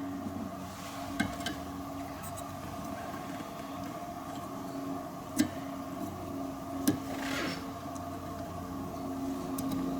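A few sharp plastic clicks from wiper blade and J-hook adapter parts being handled, about a second in, again near five and a half and seven seconds, with a brief rustle after the last. A steady background hum runs underneath.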